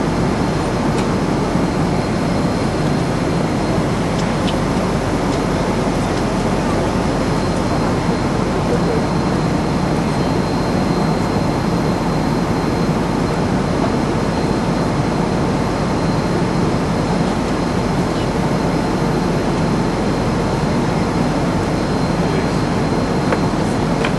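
Jet airliner cabin noise in flight: the engines and airflow make a steady, even rush with a faint thin high tone above it.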